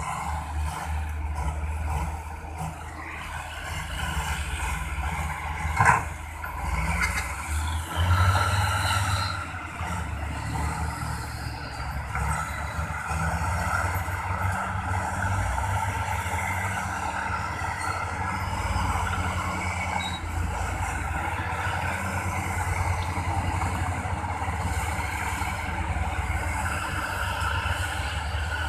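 Diesel engines of dump trucks and a bulldozer running at an earth dump, a steady low rumble. There is a sharp knock about six seconds in and a louder burst just after eight seconds.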